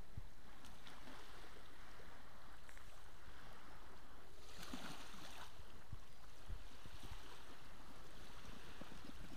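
Steady outdoor rushing noise with a low rumble, swelling into a louder hiss for about a second around the middle.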